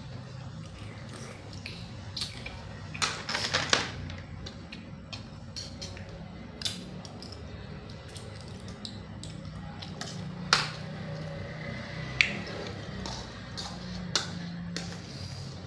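Clicks and cracks of hard cockle shells being prised open and knocking together, with a rattling cluster about three seconds in and single sharp clicks later on, over a steady low hum.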